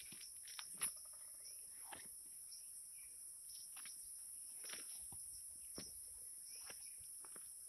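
Steady high-pitched chorus of insects such as crickets, with soft, irregular footsteps on soil.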